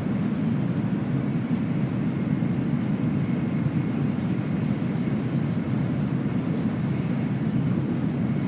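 Steady low rumble of running noise inside the passenger cabin of an N700A Shinkansen travelling between stations. A faint high whine joins about halfway through.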